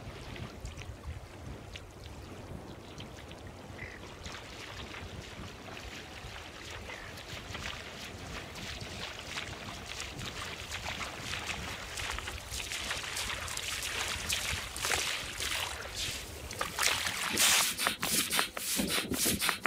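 A person wading through ankle-deep water and towing an inflatable dinghy: splashing steps that come closer and grow louder, loudest near the end, over a low wind rumble.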